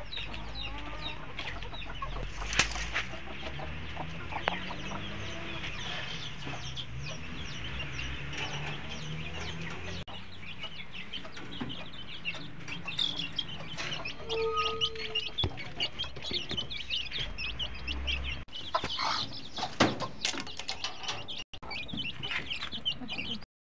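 Flock of two-week-old chicks cheeping continually in many short high peeps, with hens clucking lower among them. A few sharp knocks sound over it.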